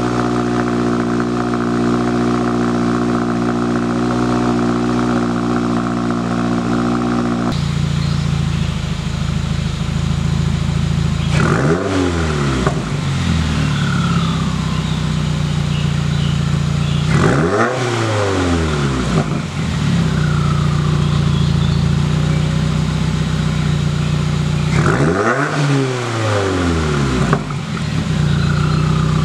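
2021 Subaru WRX's turbocharged 2.0-litre flat-four idling through an axle-back muffler-delete exhaust, then revved three times, to about 2,000, 3,000 and 4,000 rpm. Each rev rises and falls back to idle.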